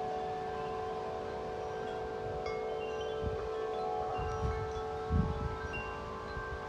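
Several large tuned wind chimes, Corinthian Bells among them, ringing in the wind: many overlapping long-sustained tones, with a deep one strongest. Gusts of wind rumble on the microphone about four and five seconds in.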